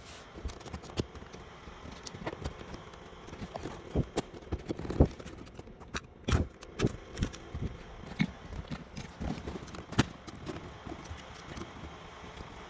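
Plastic dash trim panel of a GM truck being worked loose by hand: irregular knocks, clicks and short scrapes as its stubborn push tabs are pried at, loudest around the middle.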